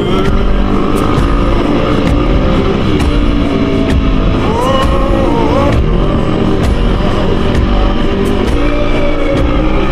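Off-road motorcycle engine sound mixed with loud music, with a rising rev about halfway through.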